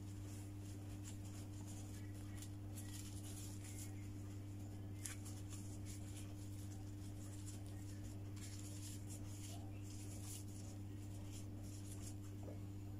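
Faint rustling and scratching as thin lumpia (spring-roll) wrappers are handled and rolled up with plastic-gloved hands, with one small click about five seconds in. A steady low electrical hum runs underneath.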